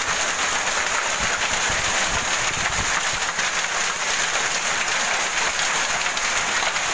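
Heavy rain mixed with hail pelting down in a storm, a dense steady hiss of countless small impacts. Gusts of wind buffet the microphone between about one and three seconds in.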